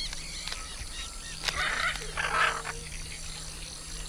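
Short harsh rasping sounds from a hyacinth macaw at work on a Brazil nut: one about a second and a half in, a longer one at about two seconds. Faint high chirps of other birds repeat behind them.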